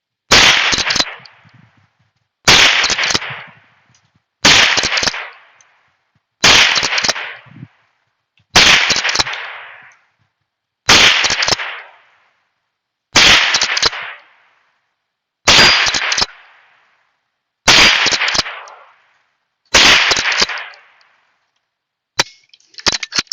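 Heritage Settler Mare's Leg lever-action gun fired ten times, one shot about every two seconds, each crack followed by a short fading echo, until the magazine runs empty. A few light mechanical clicks follow near the end.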